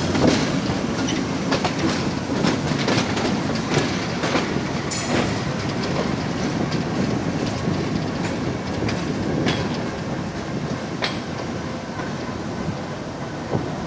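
On-board sound of an Alco RSD-39 diesel-hauled passenger train running: a steady rumble of wheels on track with frequent sharp clicks over rail joints and points. It grows slightly quieter near the end as the train slows into the station.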